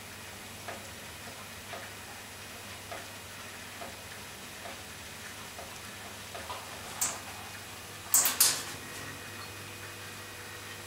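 Faint soft ticking about once a second over a low steady hum. About seven seconds in comes a sharp click, then two louder sharp clicks and scuffs a second later, as the two cats get up on the towel.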